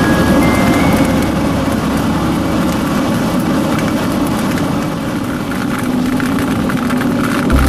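Heavy rain and wind beating on a car, heard from inside: a loud, steady rush with a low rumble and a fine patter of drops.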